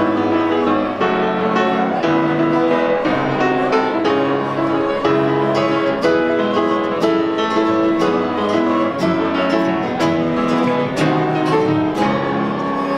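Instrumental music: a classical guitar plucking a melody over held notes from a bowed string instrument.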